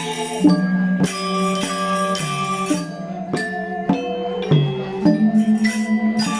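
Balinese gamelan angklung ensemble playing a classical piece: struck bronze metallophones ring out one note after another in a melodic line. In the last second or so, a low sustained tone wavers with a quick pulsing.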